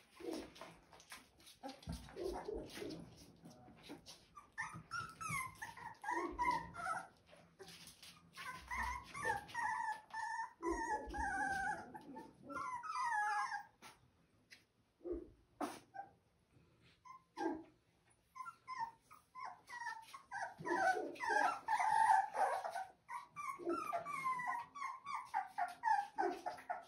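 Rottweiler puppies whining and squealing: many short, high, sliding calls in runs, with a lull about midway before they pick up again.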